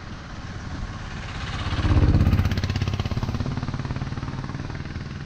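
An oncoming jeep's engine passing close by, growing louder to a peak about two seconds in with a fast pulsing beat, then fading, over the steady running of the motorcycle's own engine.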